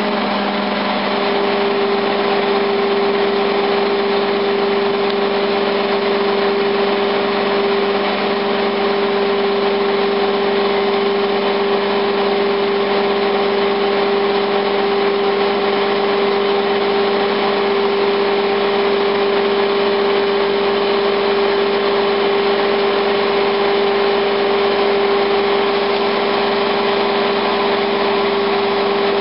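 Liebherr LTM1400-7.1 mobile crane's diesel engine running steadily, with a constant humming tone over the engine noise and no change in speed.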